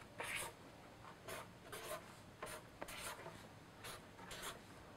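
Marker pen drawing letters on a white drawing board: a series of faint, short scratching strokes as each letter is drawn.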